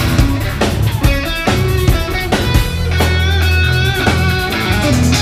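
A live indie blues band playing an instrumental passage: bass and guitar over a drum kit keeping a steady beat, with some notes bending in pitch midway.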